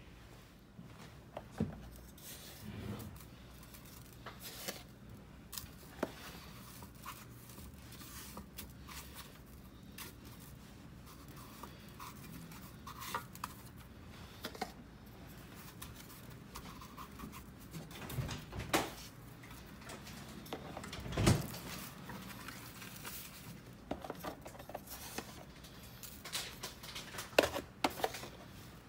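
Quiet food-handling sounds: scattered light taps and rustles of hands working mackerel fillets on a cutting board, then rubbing coarse salt over them in a stainless steel tray, with a few sharper knocks.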